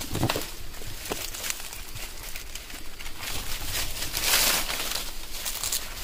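Leaves and twigs rustling and brushing close past the phone in short crackling bursts, with a louder rustle about four seconds in.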